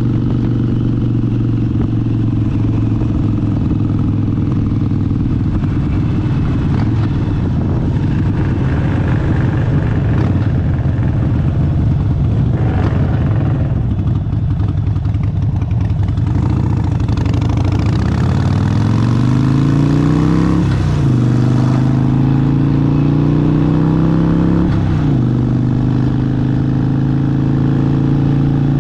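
Harley-Davidson Sportster 72's air-cooled 1200 cc V-twin running under way, steady at first, then accelerating with the pitch rising and dropping at two upshifts, about 21 and 25 seconds in, before settling to a steady cruise.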